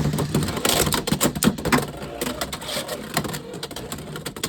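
Two Beyblade X spinning tops battling in a plastic stadium: a steady whir with a rapid, irregular run of sharp clicks and knocks as the tops strike each other and the stadium.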